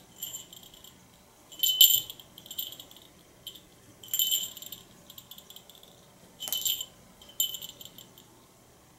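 Small bell on a cat's collar jingling in short bursts as the cat leaps and bats at a dangled toy. There are about eight bursts, the loudest about two, four and six and a half seconds in.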